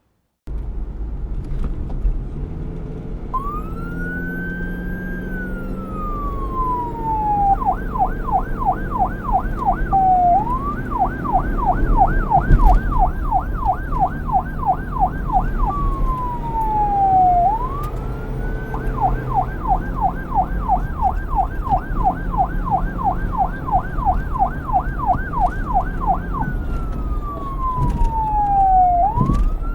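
Emergency vehicle siren switching between a slow rising-and-falling wail and a fast yelp of about four warbles a second, over the low running of the vehicle's engine. The sound starts suddenly about half a second in, and the siren joins a few seconds later.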